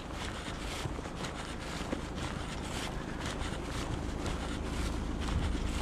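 Wind noise on the microphone: a steady low rumble with a hiss over it, and faint, irregular taps of footsteps on tarmac.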